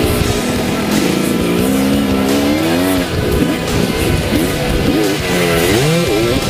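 Dirt bike engine revving as it rides, its pitch climbing and dropping with the throttle and rising and falling quickly several times near the end, with a rock song playing over it.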